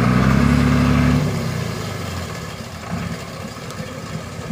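DAF army truck engine pulling hard at a steady pitch as the truck wades through deep muddy water, then easing off about a second in to a quieter, rougher run.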